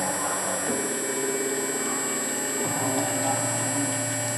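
Metal CNC router's spindle running with a steady high whine while machining a brass part under coolant. Its lower hum shifts pitch twice, about a second in and again past halfway.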